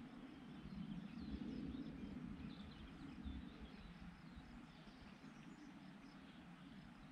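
Small birds chirping faintly, many short high calls scattered throughout, over a low steady rumble.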